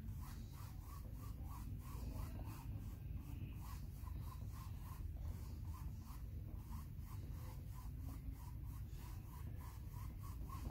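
Paintbrush dry-brushing on paper: short, light scratchy strokes in an even rhythm, about two or three a second, over a steady low hum.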